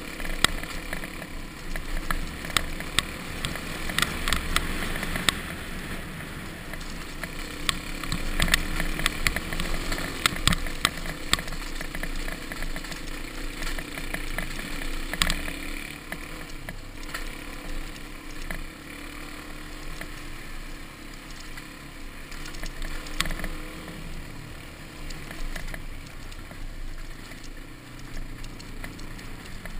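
Dirt bike engine running while riding a rough dirt track, over a haze of wind and road noise. Frequent sharp knocks and rattles over the bumps, thickest in the first dozen seconds, then only now and then.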